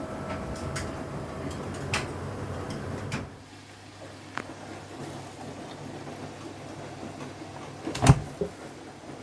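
A laundry machine's steady running noise with a faint whine, stopping about three seconds in; then light clicks and one loud knock near the end, like a door or lid being handled.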